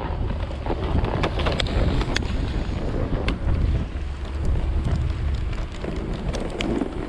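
Wind buffeting the camera's microphone, a steady low rumble, with scattered sharp clicks.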